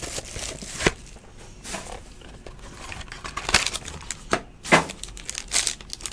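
Crinkling and tearing of a 2016 Infinity Football foil card pack as the box is opened and the pack ripped open by hand, with several sharp crackles.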